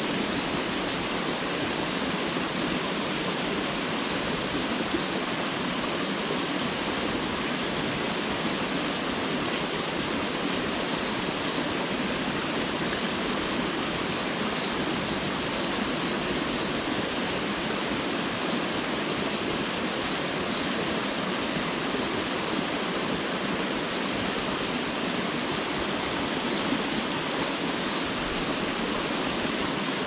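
Mountain stream running over rocks: a steady, even sound of flowing water.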